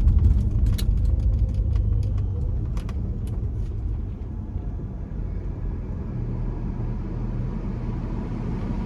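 Car cabin rumble with a quick, irregular run of clicks over the first few seconds as the air-conditioning controls are switched off and back on. The rumble then settles to a steadier, quieter level. The AC had been blowing hot, which the driver thinks means it needs Freon.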